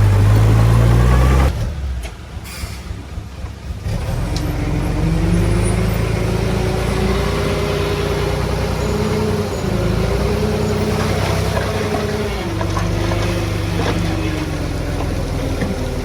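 Heavy diesel earthmoving machinery running. The engine sound drops off about a second and a half in, picks back up a couple of seconds later, and then runs on with a steady whine that wavers slightly in pitch.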